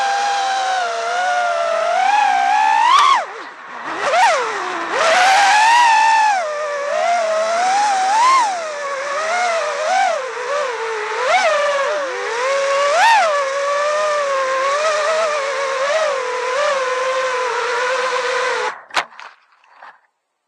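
Brushless motors and propellers of an iFlight Nazgul5 5-inch FPV quadcopter whining in flight, the pitch rising and falling with each throttle punch. Near the end the whine cuts off suddenly with a sharp knock and a little rustling as the quad comes down in the grass.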